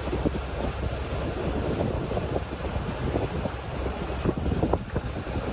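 Wind buffeting the microphone over the wash of sea water and waves around a sailing catamaran under way, with an uneven rumble and small irregular splashes.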